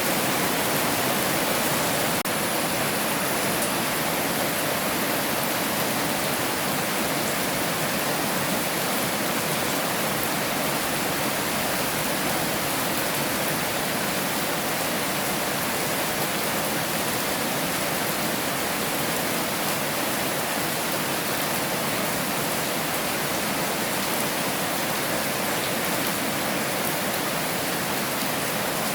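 Heavy rain falling steadily, a dense even hiss with no distinct drops or thunder.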